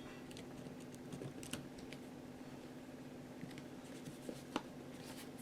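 Faint, scattered small clicks and taps of parts and tools being handled during a workbench repair, the sharpest tap about four and a half seconds in, over a steady low hum.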